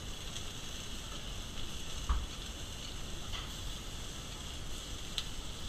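Food sizzling steadily in a frying pan, with a few light clicks and a soft knock about two seconds in as the pieces are turned in the pan.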